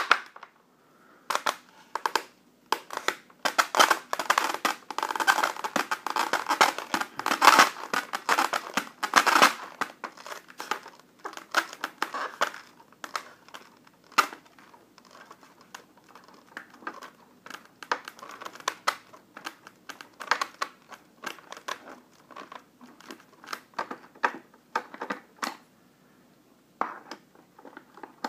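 Hands and a screwdriver working at a polystyrene foam box, with rubbing, scraping and clicking of the foam. A dense run of scrapes and clicks comes first, then sparser clicks from about ten seconds in.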